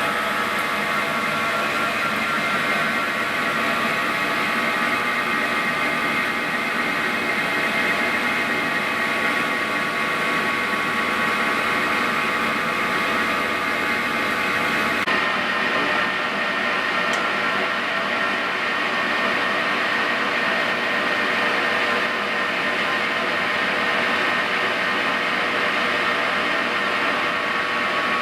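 Victor 1640 engine lathe running under power, a steady gear whine of several held tones over a hiss. About halfway through, the tones shift to new pitches and the high hiss drops away.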